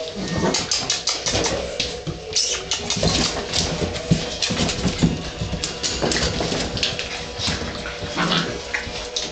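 Cattle dog puppies playing and scrabbling about: a busy run of quick clicks, clatters and scuffles from claws and paws on wire grating and floor.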